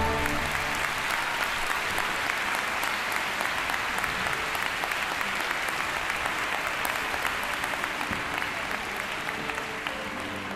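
Theatre audience applauding as the orchestra's final chord dies away, the applause slowly fading.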